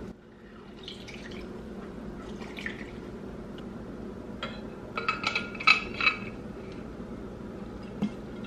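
Soft handling and squeezing noises, then liquid poured into an insulated metal water bottle, with clinks and ringing from the bottle about five seconds in and a knock near the end.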